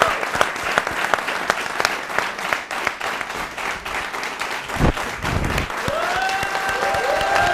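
Studio audience applauding, many hands clapping steadily. There is a dull bump about five seconds in, and a voice calls out over the clapping near the end.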